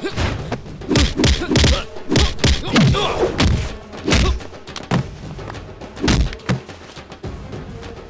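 Film fight sound effects of punches, kicks and bodies hitting the floor: a quick string of heavy thuds and whacks, thickest in the first half, over background music.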